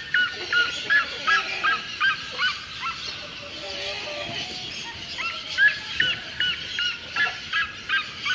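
A bird, likely domestic fowl, giving a quick series of short repeated calls, about two or three a second. After a pause of about two seconds a second series follows.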